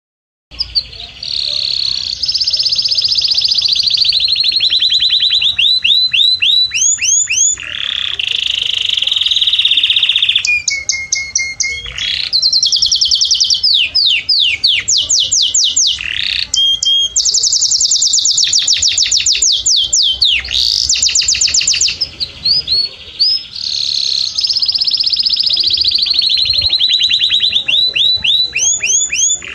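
Canary singing a long, loud song of rapid rolls, each a fast run of the same sliding note repeated many times, with a few held whistled notes between the rolls. The song starts about half a second in.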